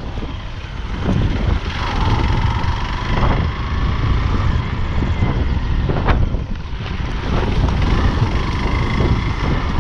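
Hero Xpulse 200's single-cylinder engine running under way on a dirt trail, with wind buffeting the microphone. A few sharp knocks stand out, the clearest about six seconds in.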